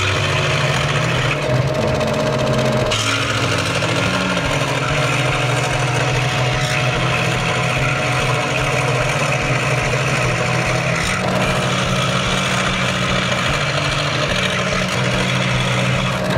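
Ryobi RSW1240G scroll saw running, its reciprocating blade cutting through a plywood board with a steady mechanical hum.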